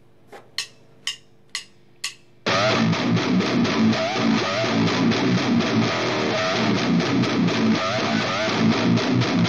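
Four sharp clicks about half a second apart over a low amplifier hum, like drumsticks counting in. About two and a half seconds in, a heavy metal band comes in loud, with distorted electric guitars and drums.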